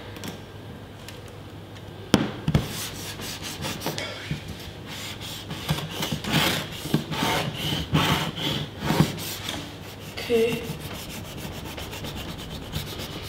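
Knife blade sawing back and forth across a flat-screen TV's screen, scraping in repeated uneven strokes. A single knock comes about two seconds in, and the strokes come thickest from about four seconds to ten.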